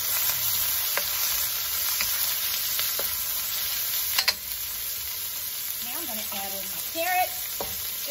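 Sliced onions sizzling steadily in hot sesame oil in a steel wok, stirred with a wooden spatula that scrapes and taps against the pan every second or so.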